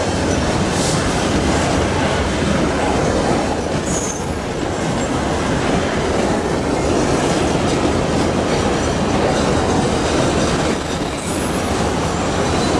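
Wagons of a long Babaranjang coal train rolling past close by: a steady rumble and clatter of steel wheels on rail, with thin high-pitched wheel squeals a few times.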